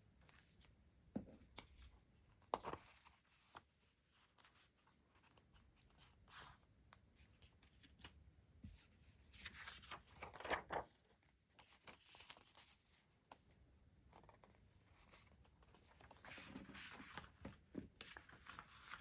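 Faint, sparse handling of stationery and its packaging: a few light taps, the sharpest about two and a half seconds in, then short rustles around ten seconds in and again near the end.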